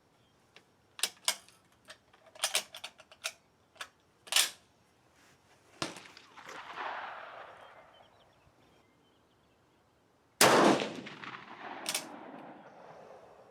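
A series of sharp metallic clicks as the Swiss K31 straight-pull rifle is handled and readied. A weaker shot with a fading echo comes about six seconds in. Then, about ten and a half seconds in, the K31 fires one loud shot that echoes and fades over the next few seconds, with a click just after.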